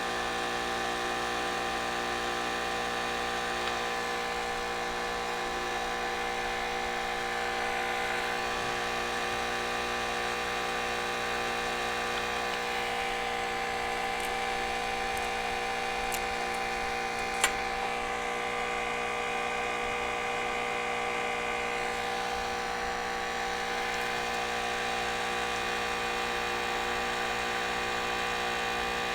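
Steady whining hum of a small electric motor or fan running without change. One sharp click about 17 seconds in.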